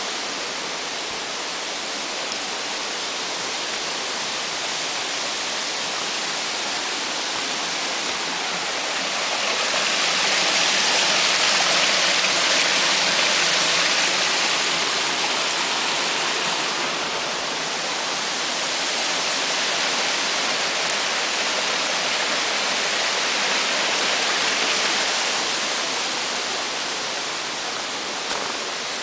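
Mountain stream rushing steadily over rocks, an even watery hiss that swells louder for several seconds about a third of the way in.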